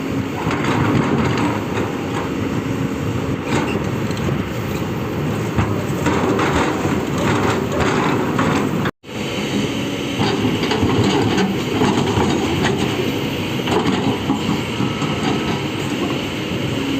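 Heavy excavator at work: diesel engine running with continual metal clanking and grinding. The sound breaks off for an instant about nine seconds in, then carries on the same.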